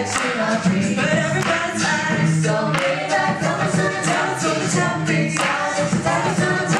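Mixed-voice a cappella group singing in close harmony through handheld microphones, with a steady beat of mouth-made vocal percussion under the voices.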